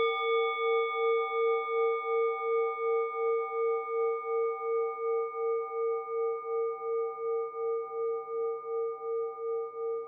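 A Takaoka bronze orin (Buddhist bowl bell) rings on from a single strike. Its main tone wavers in a steady pulse about three times a second, and its higher overtones die away within the first few seconds.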